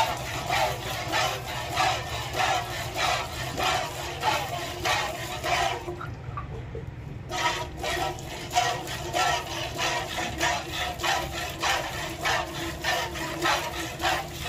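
Milk squirting from a cow's teats into a steel bucket during hand milking, a rhythmic hiss of about two squirts a second. It stops for about a second about halfway through, then carries on.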